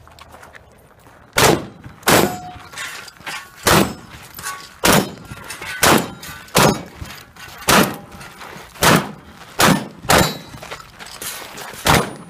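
Rifle fire in a practical shooting stage: about eleven single shots, spaced unevenly from just over half a second to a second and a half apart, starting about a second and a half in.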